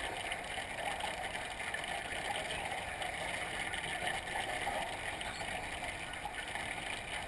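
Steady underwater noise of a swimming pool recorded beneath the surface: an even hiss with no distinct events.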